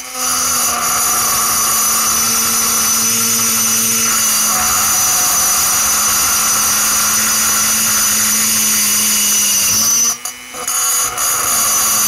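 Pencil grinder running at high speed, its burr cutting metal inside the transfer port of a chainsaw cylinder: a steady high whine with grinding. It cuts out for about half a second around ten seconds in, then runs again.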